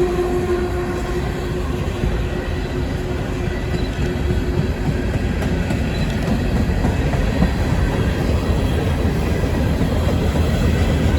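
Long freight train of coal hoppers rolling past, with a steady rumble and clatter of wheels on the rails. A steady tone at the start fades out within the first couple of seconds.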